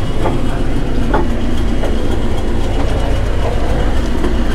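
Heritage train running, heard from inside a passenger coach: a steady low rumble, with a few short faint clicks and squeaks from the wheels on the track.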